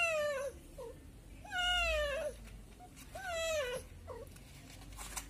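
Cat meowing three times, each meow drawn out for under a second and rising then falling slightly in pitch, about a second and a half apart.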